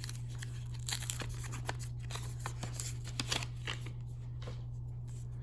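Faint rustling and crinkling of a trading-card pack's foil wrapper being torn open and the cards handled, with a few light clicks, over a steady low hum.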